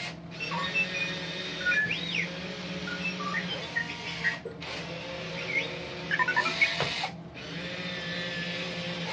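Remote-control R2-D2 toy making its electronic beeps, chirps and rising-and-falling whistles, with a quick run of short beeps a little past the middle. A steady motor whir runs underneath.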